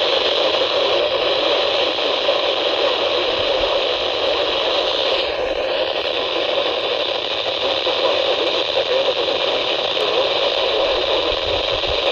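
Steady radio static from a weather radio receiver: an even hiss with no voice or alert tones coming through.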